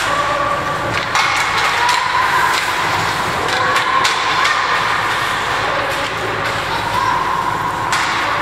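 Ice hockey rink during youth play: spectators call out in long, drawn-out shouts over the scrape of skates on the ice, with several sharp knocks from sticks and puck.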